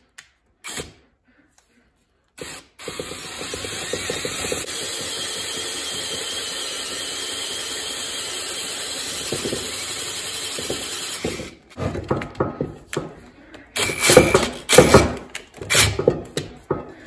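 Electric drill boring into a steel brake rotor: after a couple of clicks it runs steadily, cutting, for about nine seconds. It then goes in short, jerky bursts, stopping and starting, as the bit snags where it has hit the wall of the hole.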